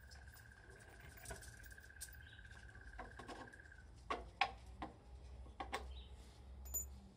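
Short clicks and knocks of a plastic motorcycle headlight cowl being handled and moved, the sharpest a little after the middle. A steady high trill runs underneath and stops a little past halfway.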